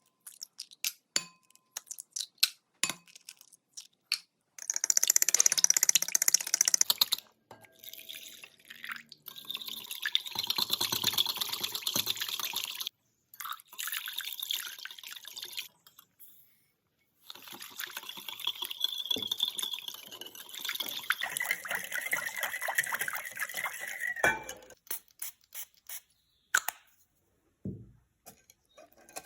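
Cake ingredients being handled: a few light clinks, then several stretches of liquid pouring and splashing, a few seconds each, with clicks near the end.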